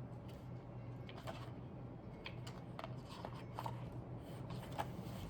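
Faint handling noises: small scattered clicks and rustles over a steady low hum.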